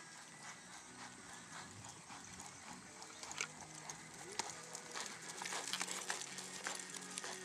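Hoofbeats of a Paint horse gelding loping on a sand arena, irregular and getting louder from about halfway in as the horse comes close.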